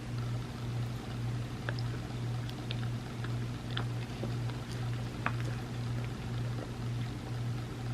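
Scattered soft clicks and wet mouth sounds of someone eating a chocolate trifle, over a steady low hum that pulses about twice a second.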